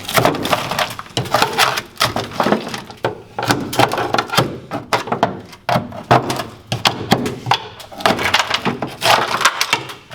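Dry-ice-frozen factory sound deadener being knocked and cracked off a car's floorboards: a rapid, irregular series of sharp cracks and knocks as the brittle deadener breaks up.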